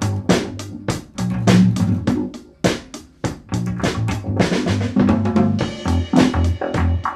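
Live drum kit and electric bass jamming: snare, kick and cymbal hits in a steady beat over held bass notes, with the cymbals ringing more thickly in the last second or so.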